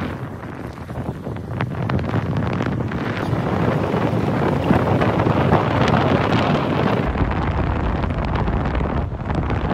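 Wind buffeting the microphone outdoors, a continuous rushing noise, with an abrupt change to a deeper, duller rumble about seven seconds in.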